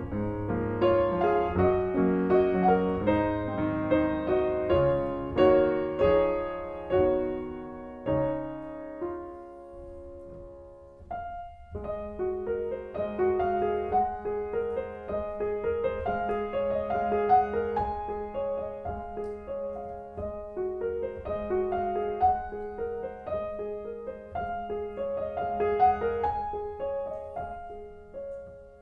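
Solo piano playing a slow, gentle carol. The music breaks off briefly about eleven seconds in, then resumes over a held low note.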